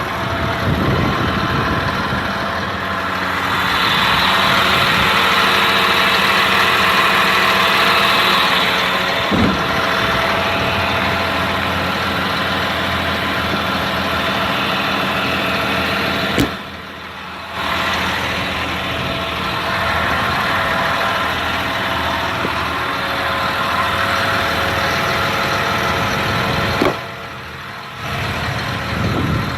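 Caterpillar C7 7.2-litre inline-six diesel of a school bus idling steadily, with a hiss over it that is stronger in the first few seconds. Twice the sound cuts out for about a second, each time just after a sharp click.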